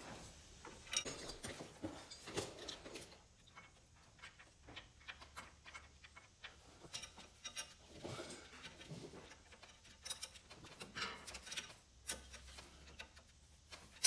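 Faint, irregular clicks, taps and light scraping of a metal hydraulic hardline and its fitting being handled and started on a valve by hand.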